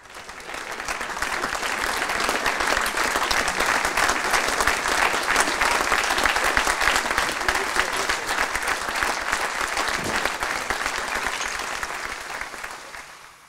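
A large audience applauding, many people clapping at once. The applause swells in over the first second or so and fades out near the end.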